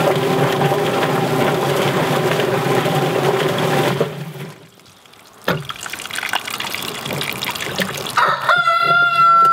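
Yardbird mechanical chicken plucker running, its drum of rubber fingers spinning a bird while a garden hose sprays water into the tub. The motor and spray stop about four seconds in, a single knock follows about a second later, and near the end a rooster crows with one long, steady call.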